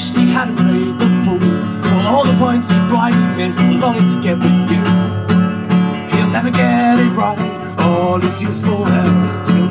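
A song played live: an acoustic guitar strummed in a steady rhythm, with a man's voice singing over it.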